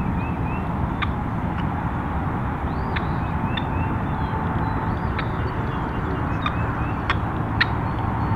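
Dawn field ambience: a steady low rumble under scattered sharp chips and a few short whistled songbird notes.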